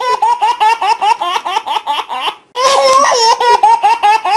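A baby laughing hard: two long runs of quick, high-pitched giggles, with a short break about two and a half seconds in.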